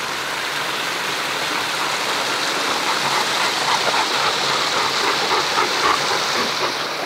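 Small backyard rock waterfall, a steady rush and splash of falling water, with a quick irregular patter over it in the middle few seconds.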